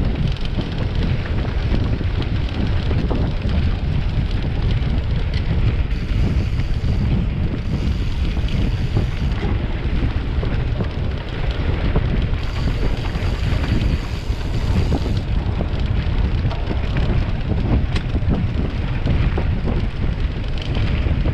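Wind buffeting the microphone of a camera in motion, with a dense low rumble and many small knocks, typical of riding a mountain bike over rough trail.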